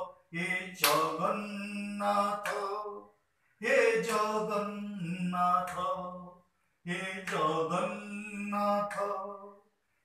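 A man singing an Odia devotional bhajan to Jagannath, unaccompanied. It comes in three phrases with brief pauses between them, with a few sharp hand claps.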